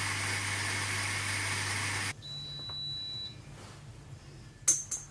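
A steady low hum with hiss that cuts off abruptly about two seconds in, then a single high electronic beep about a second long, like a UV water steriliser controller confirming its lamp reset. A sharp click follows near the end.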